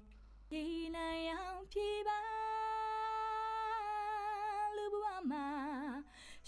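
Unaccompanied solo singing voice, an isolated vocal track playing back. After a short pause it sings a rising phrase, then holds one long note that turns into vibrato and drops to a lower, wavering note before stopping.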